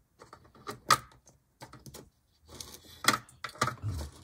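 Light plastic clicks and taps as a small toy figure on a plastic base is handled and set down upright on a hard surface, the sharpest click about a second in and a few more near the end.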